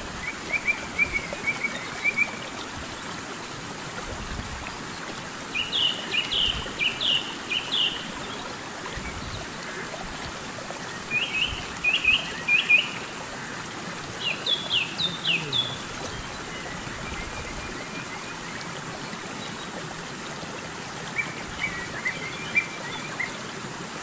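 A songbird repeating short phrases of quick, high chirps, a burst every few seconds, over the steady sound of a small stream's water running over a little cascade.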